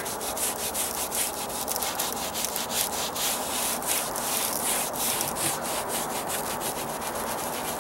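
Brush scrubbing quickly back and forth over the rough stucco face of a column, working in Dryvit stucco patch material, in rapid strokes several a second. The scrubbing loosens little bits of sand from the finish.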